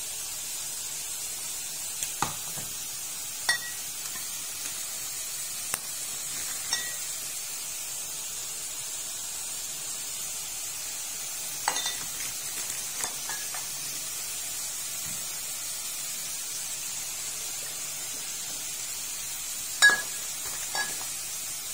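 Pork and long eggplant sizzling in a frying pan, a steady hiss, with a few sharp clinks and knocks of utensils against the pan, the loudest near the end.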